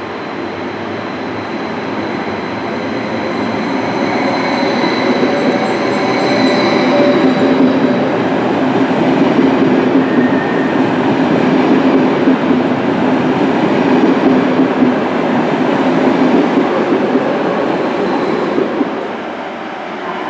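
SBB double-deck electric passenger train moving along the platform: a steady rumble of wheels on rail that builds in loudness, with a thin high whine in the first half, then drops away about nineteen seconds in.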